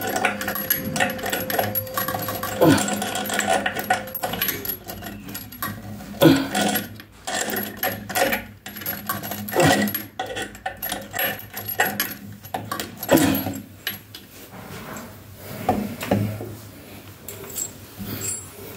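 Metal hand tool clinking and scraping on a bathroom faucet's mounting nut and fittings under the sink basin: irregular knocks and clicks as the new faucet is tightened down.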